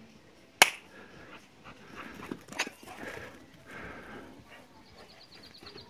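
A dog panting, soft breaths about once a second, with one sharp click about half a second in.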